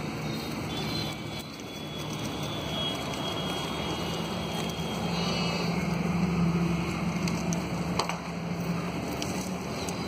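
Sheep grazing close by: leaves rustling and plants being cropped, over a steady low hum that grows louder around the middle. A single sharp click comes about eight seconds in.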